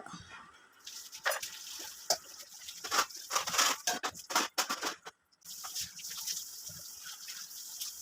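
Kitchen water sounds: light splashing and dripping over a steady hiss, with scattered sharp clicks and taps, and a brief pause about five seconds in.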